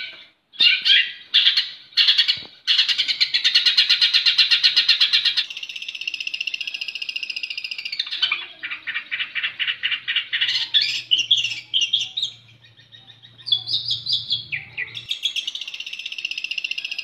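Long-tailed shrike (cendet) singing: a few short harsh notes, then a long fast rattling trill, a stretch of varied chattering notes, and another long fast trill near the end.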